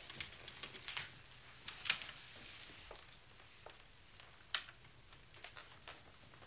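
Quiet room with scattered small clicks, taps and rustles at irregular intervals, the sharpest about two seconds in and again about halfway through.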